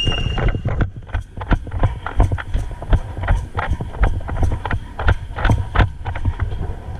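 A shrill whistle blast cutting off about half a second in, then a player's running footsteps thudding about two to three times a second, with wind and gear rattle on a body-worn microphone.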